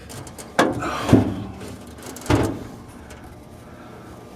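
Handling noise: three short knocks of the camera and hands bumping the furnace's sheet-metal cabinet, the loudest about a second in, over a faint steady hum.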